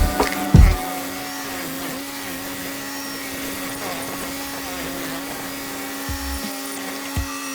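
Laski Predator P56RX stump cutter running with a steady hum, with low thumps just before about a second in and again near the end.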